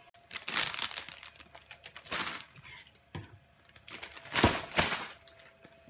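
Plastic zipper-seal bag crinkling as it is handled, in several short rustling bursts, the loudest about four and a half seconds in.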